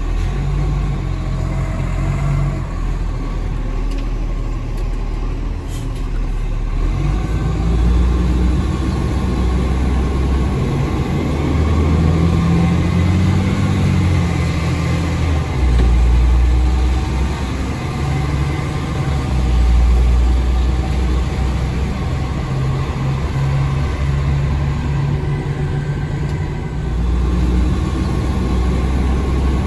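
Iveco garbage truck's diesel engine heard from inside the cab while driving, its note rising and falling several times as the truck accelerates and eases off.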